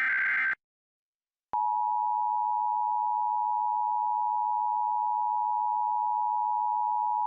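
Emergency Alert System broadcast: the last burst of the SAME digital header, a harsh screech of data tones, ends about half a second in. After a second of silence, the EAS two-tone attention signal (853 and 960 Hz together) starts and holds steady, announcing a required monthly test.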